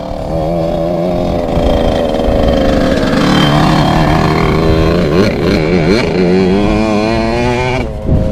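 Small children's motocross bike riding past on a dirt track, its engine revving with a wavering pitch as the throttle is worked; it passes close about four seconds in and then pulls away.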